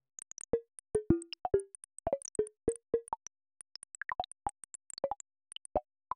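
Earthquake-catalog sonification: an irregular rapid series of short synthetic blips, each one a single earthquake, its pitch set by the quake's magnitude. The blips sit at scattered pitches from mid to very high, several a second, each fading quickly.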